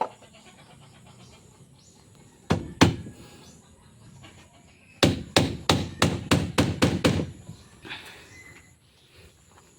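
Hammer blows: two strikes about two and a half seconds in, then a quick run of about eight strikes at roughly four a second around the five-second mark.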